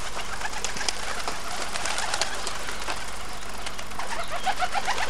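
A flock of birds chirping and calling together: many short, quick rising notes overlapping, with a run of louder rising calls near the end.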